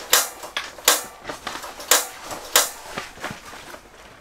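Piezo igniter on a Mr. Heater portable propane heater being pressed repeatedly to light it: about five sharp clicks, roughly one a second, the last one fainter.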